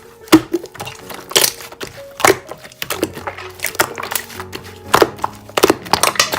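Background music with held notes, over slime being squeezed and poked: irregular sticky clicks and crackling pops, several of them sharp and loud.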